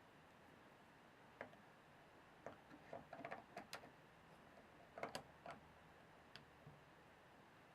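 Faint, irregular light clicks and taps over a quiet background, with a quick flurry of them about three seconds in and another about five seconds in.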